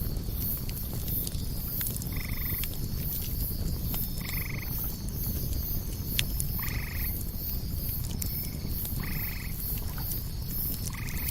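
A frog croaking, a short pulsed call repeated five times about every two seconds, over a steady low rumble and scattered crackling pops from a campfire.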